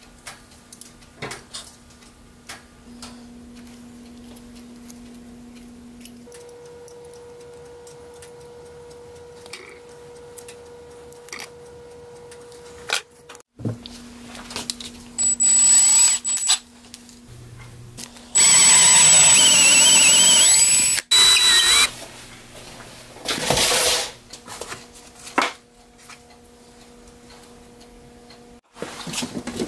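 Shop tools working a steel square bar: several loud bursts of rasping or grinding noise, the longest about three seconds, between quieter stretches of faint steady hum.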